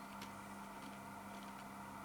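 Quiet steady electrical hum of room tone, with a single faint click about a quarter of a second in.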